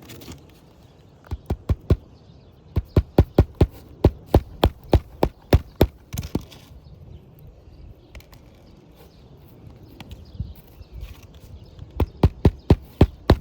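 Hammer driving roofing nails into an asphalt shingle: sharp, even strikes about three to four a second, in a short run near the start, a longer run through the middle and another near the end.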